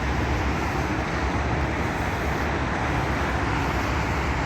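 Steady road noise of a moving car: a constant low rumble with a hiss of tyres and air over it.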